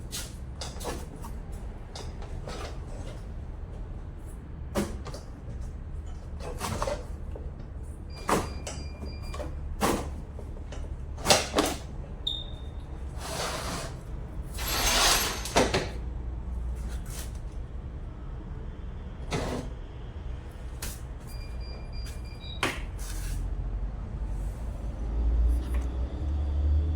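Repeated sharp knocks and clanks of tools and parts being handled over a steady low hum, with a longer hissing noise about halfway through and a low rumble rising near the end.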